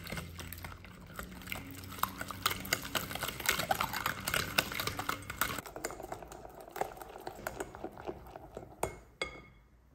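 A whisk beating an egg and yogurt batter in a glass bowl: rapid clicking and scraping of the wires against the glass, thinning to a few taps near the end.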